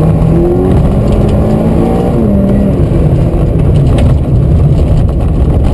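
Inside a Peugeot 16-valve rally car at speed on gravel: the engine runs hard under load, its pitch climbing and then dropping away about two seconds in, over a constant rumble of tyres on the loose gravel road.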